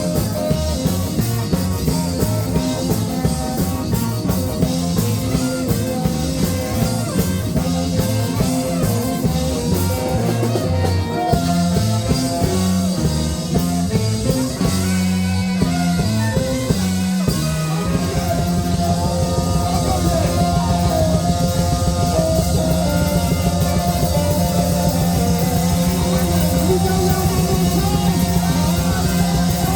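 Live ska band playing an instrumental passage on guitar, bass and drums. About eighteen seconds in, the bass settles onto one repeated note and a melody line carries on above it.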